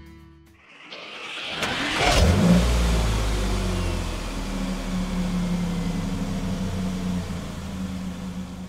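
Logo sound effect: a rising whoosh ending in a hit about two seconds in, then a vehicle engine rumbling at a steady low pitch and slowly fading.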